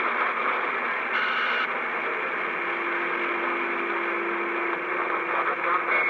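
CB radio receiver putting out steady static hiss from its speaker on an open channel. A faint steady low tone runs through the middle for about two seconds.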